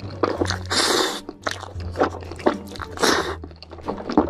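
Close-miked mouth sounds of a person eating noodles: two longer slurps with wet chewing and lip-smacking clicks in between.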